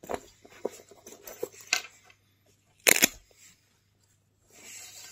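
A black nylon camera bag being handled: light rustling and small clicks of the fabric and fittings. There is one loud knock about three seconds in as the bag is set down on a wooden table, then a brief scraping rustle near the end.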